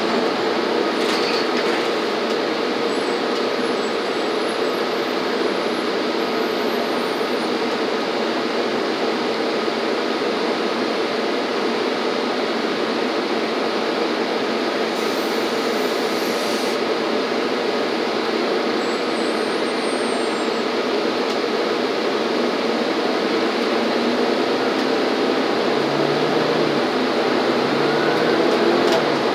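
Steady drone of a city transit bus heard from inside the cabin: engine, running gear and road noise. A brief high hiss comes about halfway through.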